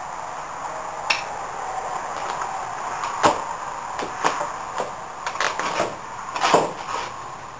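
Thin plastic packaging crinkling and rustling as it is pulled off a plastic vacuum sealer, with scattered sharp clicks and knocks of the appliance being handled, busiest in the second half.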